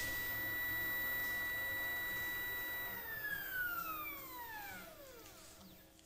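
Stepper motors of a 3D-printed OnStep equatorial telescope mount whine at a steady high pitch while slewing, driven by DRV8825 drivers at 32x microstepping. About three seconds in, the whine glides down in pitch and fades as the motors slow down at the end of the move.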